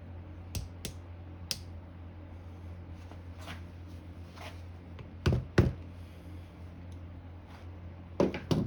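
Sharp knocks and clicks of hand tools against metal motor parts, a few light ones early, two louder knocks a little after five seconds in and a quick cluster of knocks near the end, over a steady low hum.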